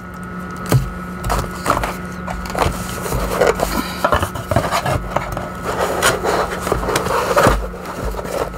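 Hands rummaging through a box of essential-oil products, with repeated scraping and rustling and many small knocks of bottles and packaging. Two heavier thumps come about a second in and near the end.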